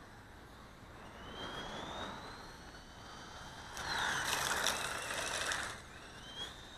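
Small brushed electric motor and drivetrain of a 1/18-scale FS Racing 73901 RC short course truck whining as it accelerates, the whine rising in pitch twice. About four seconds in there is a louder two-second stretch of gritty tyre and drivetrain noise over concrete and gravel.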